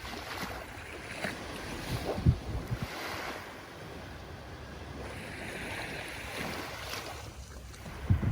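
Ocean surf: waves washing in a steady rushing hiss that swells and eases every few seconds, with low thumps of wind on the microphone about two seconds in and again near the end.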